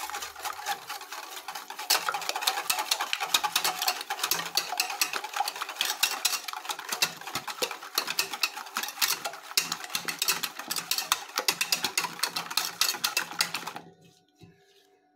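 Whisk beating eggs in a bowl, a fast, steady clatter of wire against the bowl that stops abruptly about 14 seconds in.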